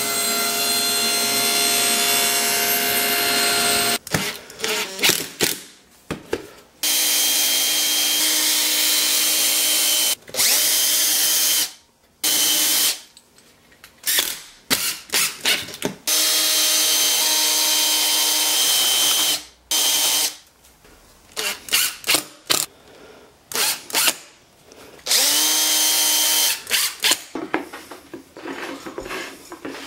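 Power tools running in repeated short runs with pauses between: a table saw cutting small pieces at a bevel, then a cordless drill spinning up and down as it drives screws through wooden guide strips into a plywood base.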